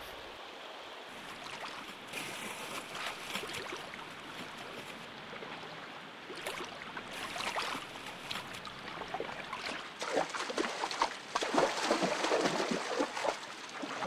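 Shallow river water running over stones, with irregular splashing that grows busier and louder in the second half as a brown bear wades through the water.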